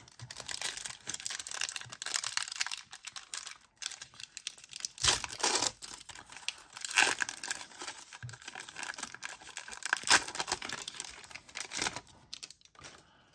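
Foil wrapper of a 1991 Upper Deck football card pack being torn open and crinkled by hand: irregular crackling and tearing, with a few louder moments along the way.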